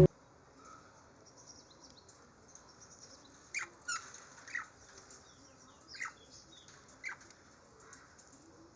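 Small pet birds giving about five short, sharp chirps spaced a second or so apart, faint against a quiet background.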